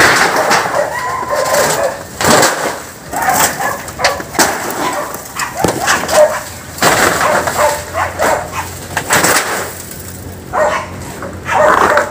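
A dog barking repeatedly in short, irregular bursts.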